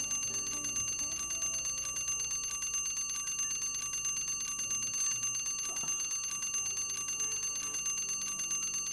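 Alarm clock bell ringing continuously, the hammer striking very fast and evenly: a morning wake-up alarm.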